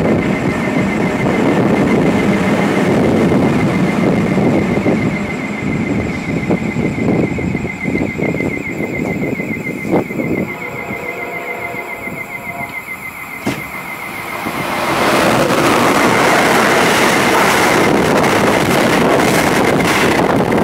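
A steady rumble with a high, fluttering whine from the departing NJ Transit electric train on the far track. From about three-quarters of the way in, the loud rush of an Amtrak Northeast Regional train led by a Siemens ACS-64 electric locomotive builds as it races past the platform at speed.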